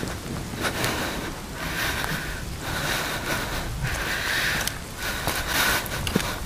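Wind buffeting a camera's external microphone in the rain, a low rumble with rain hiss, and a swishing that swells and fades about once a second as the wearer runs.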